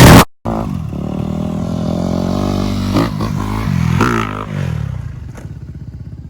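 Off-road engine running and being revved, with sharp rises in pitch about three and four seconds in, then fading. A much louder engine cuts off abruptly just after the start.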